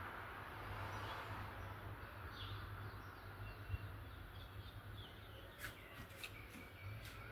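Faint short chirps over a low steady hum, with a few sharp clicks in the last couple of seconds.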